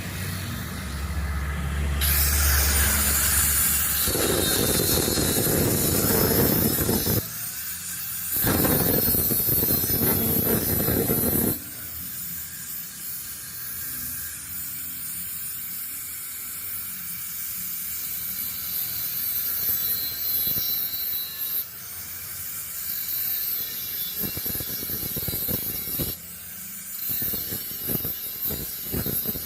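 A handheld electric power tool working on steel scooter bodywork, its motor whine rising and falling. There are two louder stretches of heavier work, of about five and three seconds, in the first half.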